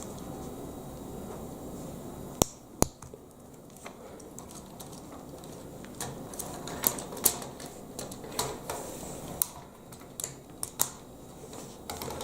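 Plastic Lego Technic pieces clicking and tapping as they are handled and pressed together: two sharp clicks about two and a half seconds in, then a scattering of irregular clicks through the second half.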